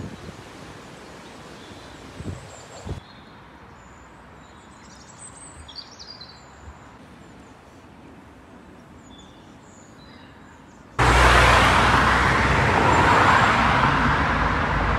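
Birds chirping faintly over a quiet outdoor background. Near the end a loud, steady rushing noise with a low engine hum cuts in abruptly, typical of road traffic close by.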